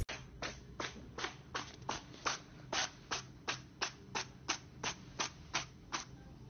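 A grey tabby kitten making a rhythmic series of short, breathy huffs, about three a second, which stop about six seconds in. A sharp click comes at the very start.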